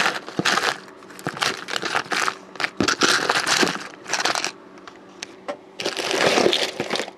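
Small plastic bags of electronic components crinkling and rustling as hands rummage through them, in irregular bursts with short pauses.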